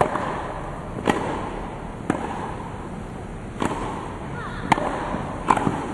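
Tennis rally on grass: sharp pops of rackets striking the ball and the ball bouncing, about six in all, roughly once a second.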